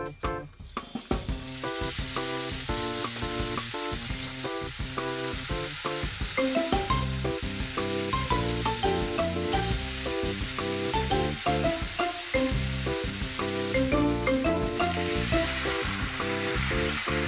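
Background music with a melody of short stepping notes, over a steady sizzle of food frying in a pan that comes in about a second in.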